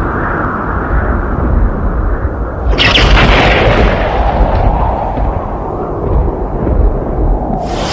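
Thunder rumbling continuously, with a sharp thunderclap crack about three seconds in that rolls off into a long rumble. Another crack breaks right at the end.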